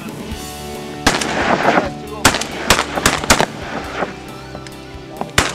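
Several hunters' shotguns firing a rapid, uneven volley at flushing mallards: about eight loud shots, starting about a second in and bunched over the next few seconds, with a last shot near the end. Background music plays underneath.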